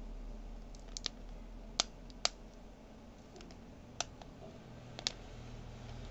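The magnets of magnetic reading glasses clicking together as the two halves are repeatedly joined and pulled apart to test the newly glued magnet. There are several sharp, irregularly spaced clicks, some in quick pairs.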